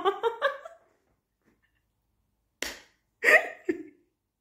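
A woman laughing in short breathy bursts that trail off within the first second; after a pause, a sharp catch of breath and another brief burst of laughter.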